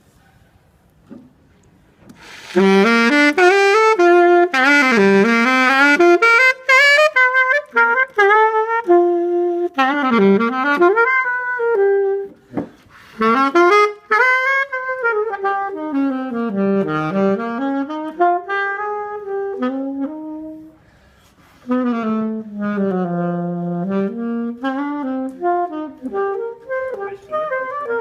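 Saxophone played solo: a melodic, jazz-like phrase with pitch bends, starting about two seconds in, with short breaks about halfway and again near the two-thirds mark.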